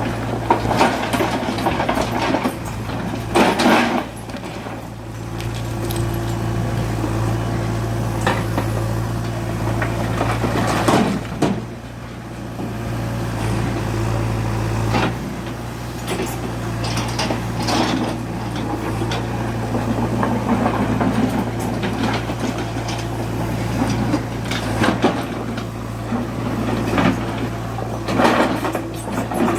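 Diesel engine of a JCB 3DX backhoe loader running steadily while it works, with its tone shifting slightly about halfway through. Short bursts of clatter and thuds come at intervals.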